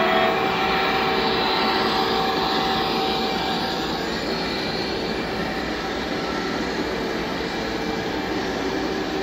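Model train running along the layout track: a steady rolling noise from the electric locomotive and its passenger coaches. It eases off slightly about four seconds in, as the locomotive moves past.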